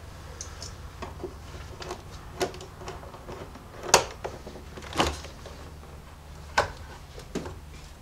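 Screwdriver loosening a hose clamp on a rubber air-intake boot: scattered light metal clicks and taps, the sharpest a few seconds in.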